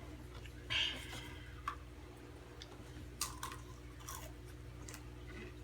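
Takis rolled tortilla chips being chewed, with a handful of short, crisp crunches; the loudest comes about a second in.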